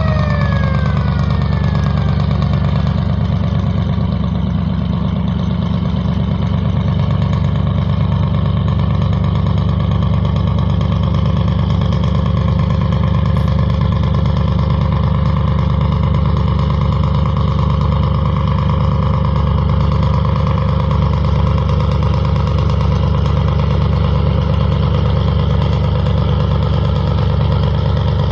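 Boat engine running with a steady low drone. A falling siren-like whoop from a vessel's horn or siren fades out about a second in.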